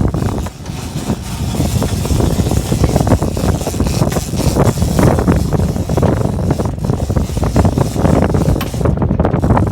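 Wind buffeting the microphone over the steady noise of a fishing boat under way at sea.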